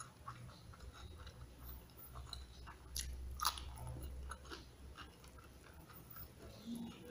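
Close-up eating sounds: a person chewing and crunching mouthfuls of crispy smashed fried chicken (ayam geprek) with rice, scattered small wet clicks and crackles, loudest about three seconds in.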